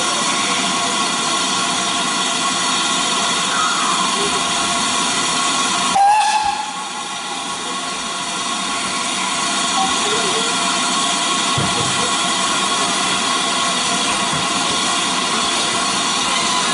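Steam locomotive hissing steadily as steam escapes, with faint steady whistling tones in the hiss. A sharp click about six seconds in, after which the hiss is briefly a little quieter.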